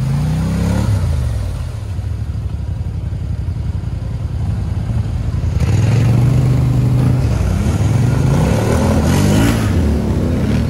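ATV engines running and revving, the note rising and falling with the throttle. They get louder about halfway through as one is opened up, its pitch wavering.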